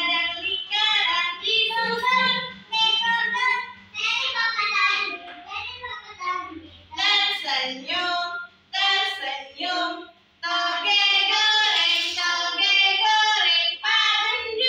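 Young children singing a song, phrase after phrase with short breaks between.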